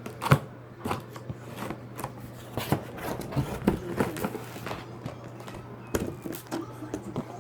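Cardboard box and packaging handled while a hoverboard is unpacked: irregular knocks, scrapes and crackles, over a steady low hum.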